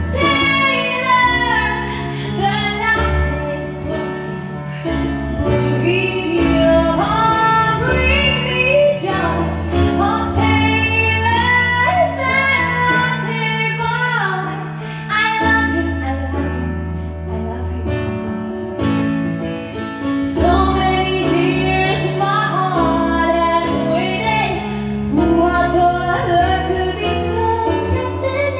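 A woman sings a melody into a microphone over instrumental accompaniment with a sustained bass line, her voice holding and gliding between notes.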